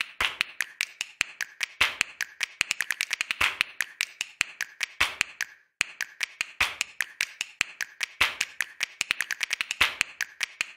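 Pencil strokes on sketchbook paper, heard as a quick, irregular run of scratchy ticks with a brief pause about halfway through.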